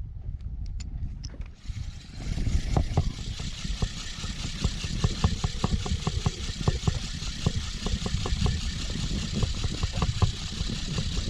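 Fishing boat's engine coming up to speed about two seconds in and running steadily as the boat moves off. Irregular knocks of the hull slapping the water and a steady rush of wind and water come with it.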